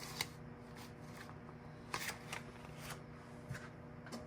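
Paper banknotes being flicked and handled as cash is counted by hand: a few short, sharp papery rustles over a faint steady hum.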